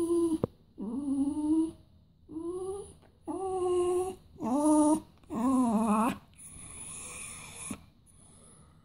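Dog whining in a string of six drawn-out, howl-like calls, each half a second to a second long, the last one wavering in pitch: it is begging for its evening food.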